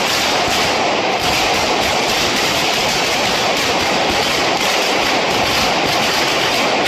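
A traca valenciana, a long string of firecrackers hung above the street, going off in a fast, unbroken crackle of bangs as the fire runs along the string. The barrage stays loud and even.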